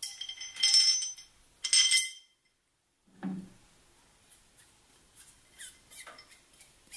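Steel vise-screw parts (a chain sprocket on a threaded rod) clinking and ringing as they are handled: two bright metallic rings in the first two seconds. A dull knock follows about three seconds in, then faint small clicks of parts and washers being fitted.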